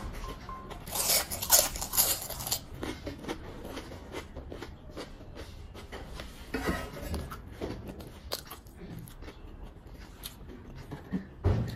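A person biting and chewing a fried potato chip: a cluster of crisp crunches about a second in, then softer chewing and mouth clicks.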